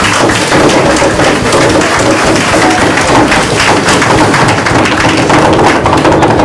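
A room full of people clapping and applauding, a dense patter of many hands.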